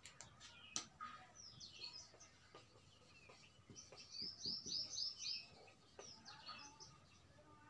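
Marker pen writing on a whiteboard: faint strokes and light taps, with a quick run of high chirps about four seconds in.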